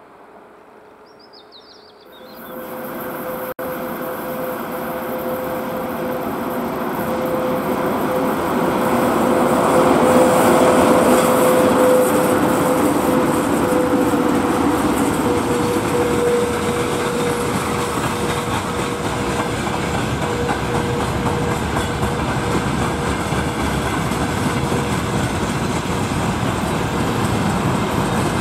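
Faint birdsong, then about two seconds in a VL80K electric locomotive hauling a freight train comes up loud as it passes, with a steady hum over the rumble of its wheels. The hum fades and loaded hopper wagons roll by on the rails with a steady clickety-clack.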